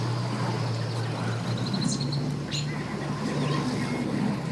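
Pickup truck engine running low and steady as it reverses a boat trailer down the ramp. Thin bird chirps sound above it in the first half.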